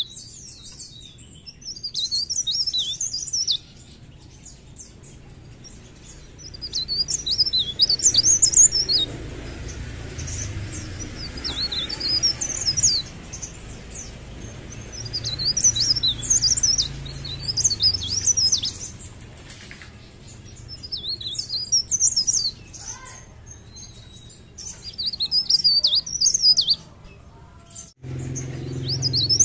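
A cikrak daun (blerengan), a mountain leaf warbler, singing in full voice. It gives a series of rapid, high, chirping phrases, each about two seconds long, with short pauses between them.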